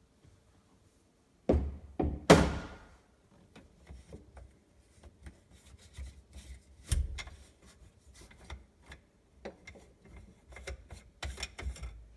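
Knocks, thuds and clatter of hands and tools working on a kitchen sink being removed. The two loudest knocks come about a second and a half and two seconds in, the second ringing briefly; a run of smaller clicks, knocks and rubbing follows, with a busier patch near the end.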